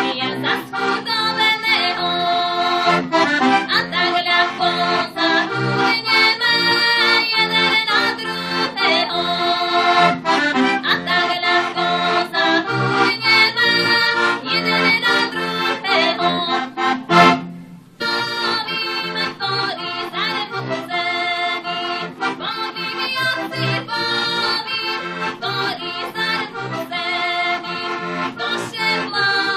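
Heligonka, a diatonic button accordion, playing a lively instrumental folk tune: a quick melody over a steady bass-and-chord beat. About two-thirds of the way through there is a sharp knock and the playing drops out for under a second before carrying on.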